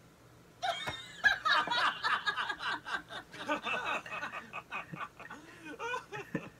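A man laughing: a burst of chuckling and snickering that starts about half a second in, is loudest for the next few seconds, then trails off in shorter bursts.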